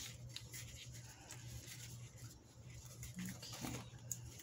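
Faint light clicks and clinks of a tangled metal jewelry chain being handled and unhooked, over a steady low hum. A brief low hum-like tone sounds about three seconds in.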